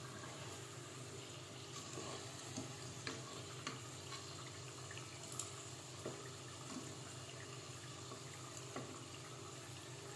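Spring rolls of glutinous rice (rice turon) frying in a pot of hot oil, the oil bubbling and sizzling steadily over a low hum. Light clicks and taps come every second or so from a wooden spatula and metal tongs against the pot and a steel mesh strainer as the rolls are turned and lifted out.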